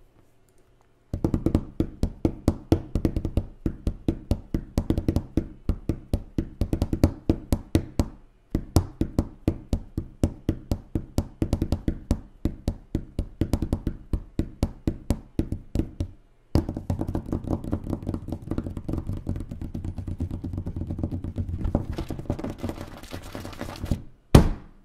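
A car tyre rolls slowly over full aluminium soda cans on asphalt: a dense, fairly regular run of crackling clicks and knocks over a low hum. The sound is cut off twice and starts again. Near the end a can bursts with one loud pop.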